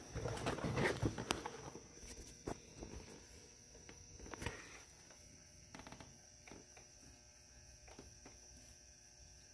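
Handling noise: rustling and scattered light clicks and knocks, busiest in the first two seconds, then a few isolated clicks and faint ticks as things are moved about under the engine. A faint steady high whine sits underneath.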